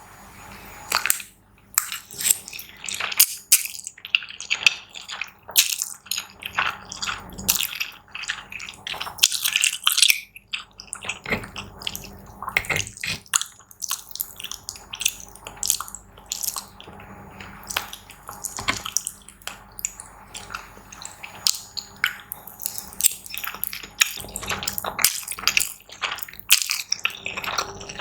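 Close-miked mukbang eating sounds of saucy Buldak noodles: wet, sticky slurps and chewing made of many small irregular smacks and crackles.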